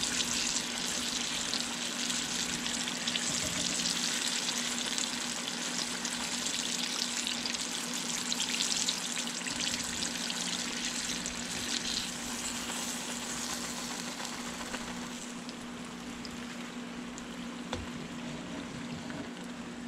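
Flour-dredged burbot chunks deep-frying in hot oil in a cast-iron skillet: a steady sizzle of bubbling oil, the fish nice and done. It eases off somewhat past the middle as pieces are lifted out with a wire skimmer basket, with a few light clicks of the basket.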